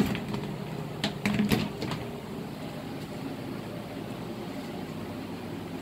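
A few sharp knocks and clatters of wooden hive parts being handled, about one to two seconds in, over a steady low hum.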